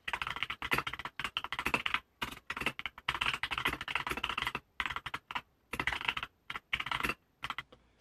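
Typing on a computer keyboard: quick runs of keystrokes with short pauses between them.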